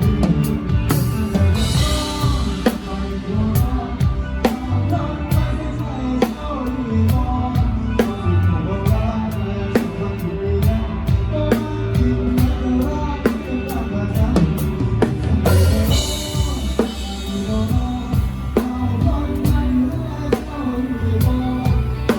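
Live band music with a drum kit prominent: a steady beat of kick and snare strikes under bass and melodic instruments, with cymbal crashes about a second and a half in and again about fifteen seconds in.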